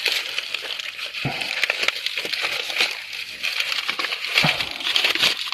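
Dry twigs and leaves crackling and snapping in a run of small cracks, with a couple of firmer knocks, over a steady high hiss.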